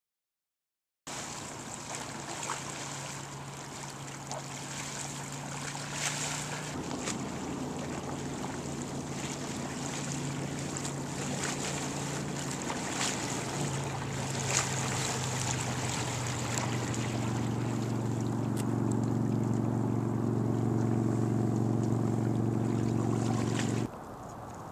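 A steady engine hum over splashing water and wind noise on the microphone. The hum steps in pitch a few times and grows louder and fuller, then cuts off abruptly near the end, leaving a quieter wash of water.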